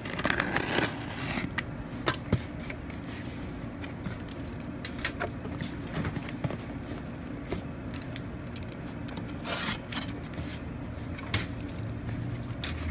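Packing tape being peeled and torn off a cardboard shipping box in a long noisy rip at the start, then cardboard flaps and a foam insulated liner being opened with scraping, rubbing and scattered light knocks. A second short rasp comes about two-thirds of the way through.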